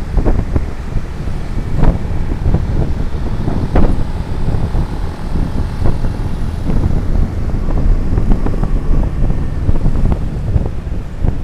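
Wind buffeting the microphone while riding in traffic, a loud low rumble with irregular gusts, with vehicle engine and road noise underneath.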